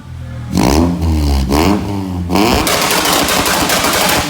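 Straight-piped Honda H22A4 engine revved in quick blips, then held on a two-step launch limiter, firing a rapid, dense string of crackling pops for the last second and a half or so.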